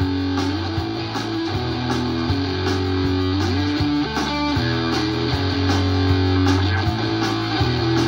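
Live rock band playing an instrumental passage: an electric guitar riff over sustained bass guitar notes and drums keeping a steady beat of about two strokes a second, with a brief sliding guitar figure a little past the middle.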